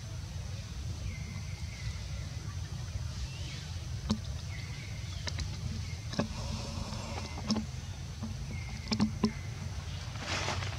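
Steady low rumble of wind on the microphone, broken by about half a dozen sharp clicks and a few faint, short high-pitched calls, with a brief rustle near the end.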